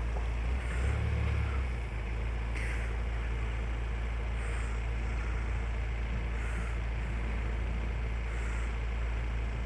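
Steady low rumble of outdoor background noise, swelling slightly about a second in.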